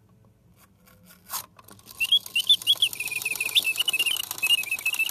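Singing bird box automaton: its bellows-driven whistle warbles birdsong in quick chirps and short trills over the fast ticking of the clockwork. A few clicks come first, and the song starts about two seconds in.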